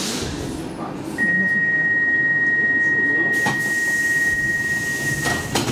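Stockholm Metro C14 train standing at a station, sounding its door-closing warning: one steady high beep held about four seconds, with knocks near the end as the doors shut.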